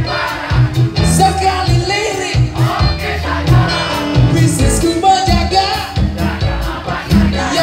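Live band playing an upbeat song through an outdoor PA system: drums and a driving bass line, with a singing voice over them.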